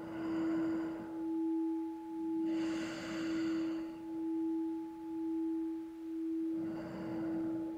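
A singing bowl sustains a steady ringing tone that swells and fades about once a second. Over it a person breathes audibly through the nose three times, each breath lasting about a second, as part of a guided breathing exercise.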